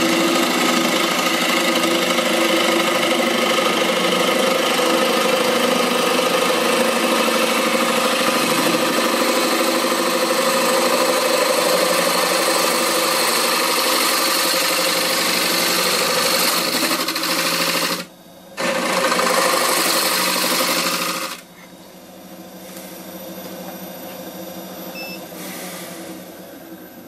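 A gouge cutting a spinning honey locust bowl blank on a wood lathe, with a loud, steady tearing of wood. The cut breaks off for a moment at about 18 s and picks up again. It stops at about 21 s, leaving only the quieter whir of the lathe spinning the blank.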